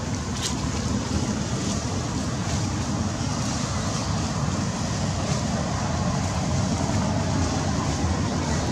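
Wind buffeting an outdoor microphone: a steady low rumble with a hiss above it.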